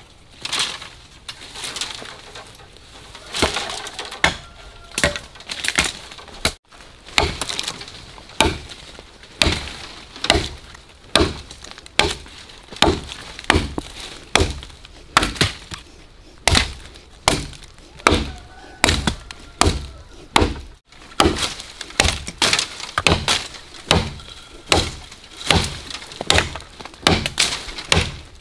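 Repeated hard chopping strikes on wood, about one a second in a steady working rhythm.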